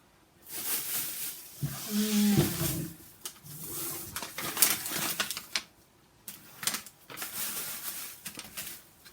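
Rustling and crinkling of plastic shopping bags and grocery packaging being handled, in several bursts with short pauses and a few light knocks.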